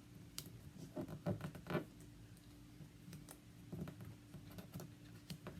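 Faint, scattered small taps and clicks of hands fumbling to pick up a tiny cut-out eye dot, over a faint steady hum.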